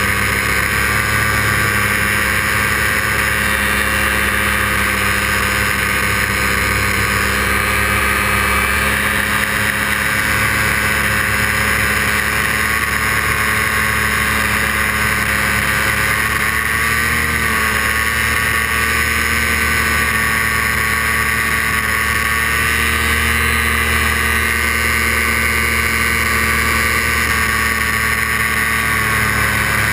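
Paramotor engine and propeller running steadily in flight, with a brief dip and recovery in pitch about halfway through.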